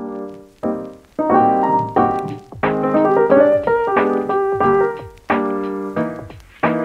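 Background music: a piano playing a gentle melody over chords, notes struck and left to fade, a few new notes every second.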